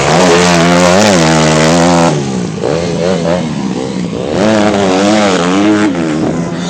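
Dirt bike engines revving on a motocross track, pitch rising and falling as the throttle opens and closes through gear changes. The sound eases off about two seconds in and swells again a little past the middle.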